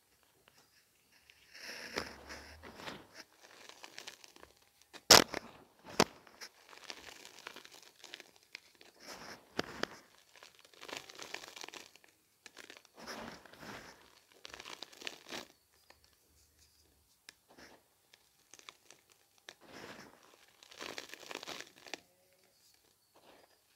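Gym chalk powder and lumps being crumbled and sifted by hand into a plastic tub: soft crunching and the rustle of falling powder in short bursts every second or two. A sharp click about five seconds in is the loudest sound.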